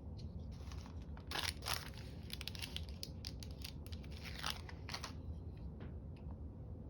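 Paper being handled by hand: a series of short, crisp rustling and crackling strokes, loudest about a second and a half in and again around four and a half to five seconds in.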